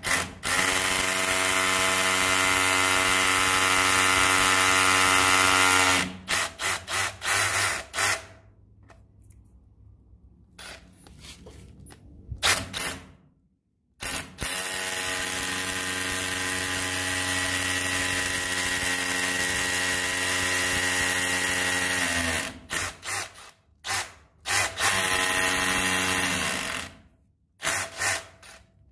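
Milwaukee M12 CH cordless rotary hammer running at a steady pitch in three runs: a long one of about five seconds, a longer one of about eight seconds, and a shorter one of about two seconds. Between the runs the trigger is blipped briefly several times, with quiet gaps.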